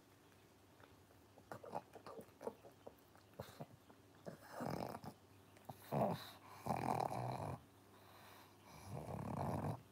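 Pug breathing noisily through its flat, short muzzle: a few small mouth clicks and smacks at first, then four long snoring breaths in the second half.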